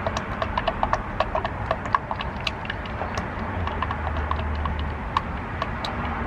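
Motor oil glugging out of a quart bottle into the engine's filler neck: quick, uneven gulps, several a second, that thin out after about three seconds. A low rumble runs under them in the middle.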